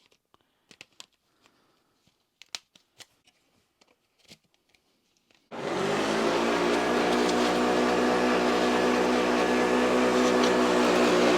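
Light clicks and knocks of vacuum attachments being handled, then a Hoover Junior vacuum cleaner switched on about halfway through. Its motor comes up to speed at once and runs with a steady hum and rush of air.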